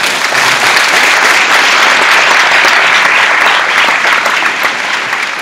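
Audience applauding, loud and dense, easing off near the end.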